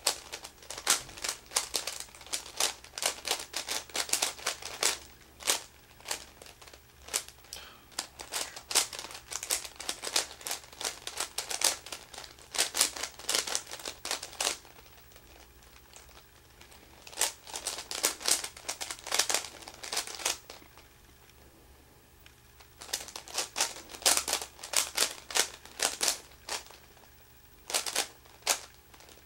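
A modded Meffert's 4x4 puzzle cube being turned quickly by hand: rapid runs of plastic clicks and clacks as its layers snap round, broken by two pauses of a couple of seconds about halfway through and again a few seconds later.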